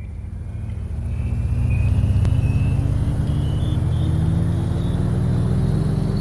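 Background soundtrack: a low drone swells up over the first two seconds and then holds steady, with a faint high tone slowly rising above it.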